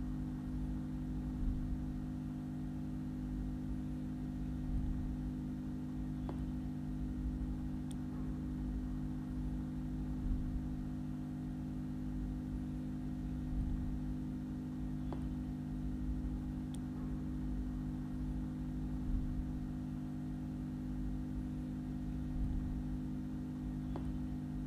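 Steady low background hum with a few faint, widely spaced clicks.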